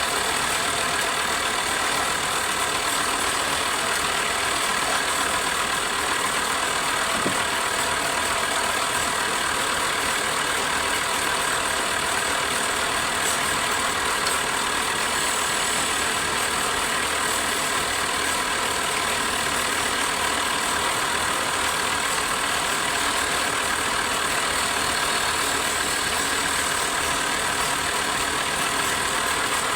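Wood lathe running at a steady speed, a constant mechanical hum with no change in pitch or level.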